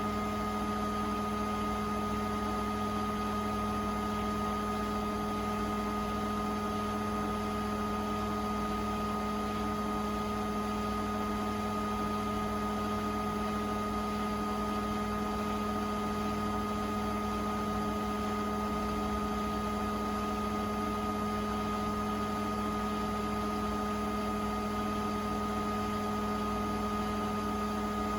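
Beko WTK104121A washing machine spinning at a steady speed: a constant motor whine with several fixed tones over a low hum, unchanging throughout.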